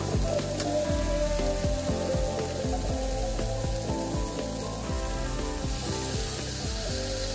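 Potato and pointed gourd pieces with green chillies sizzling in oil in a nonstick kadai, stirred with a spatula that knocks and scrapes against the pan, over background music.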